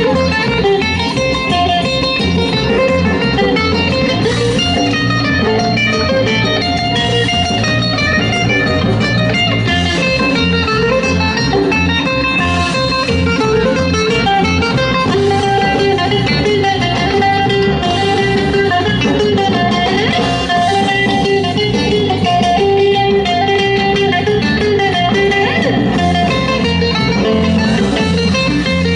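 Live Greek folk dance music: a bouzouki playing a plucked melody over electric bass guitar, with a steady beat.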